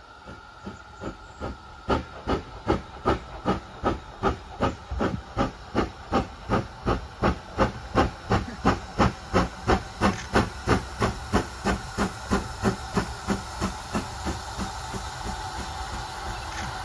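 GWR Large Prairie 2-6-2T steam locomotive 4144 working towards the listener, its chimney exhaust beating in a steady chuff at about three beats a second over a hiss of steam. The beats grow louder as it nears, then blur into a steady hiss near the end.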